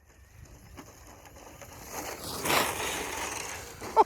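Brushless 6S RC car, an Arrma Infraction, driving over loose dirt and gravel, its tires crunching and scraping. It swells to its loudest about two and a half seconds in as it passes close, then runs on steadily.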